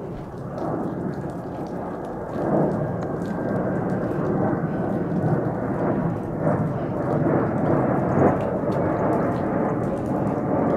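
Jet roar of a Delta Airbus A220's Pratt & Whitney geared turbofans as the airliner flies overhead: a deep, even rushing rumble that swells about two seconds in and stays loud.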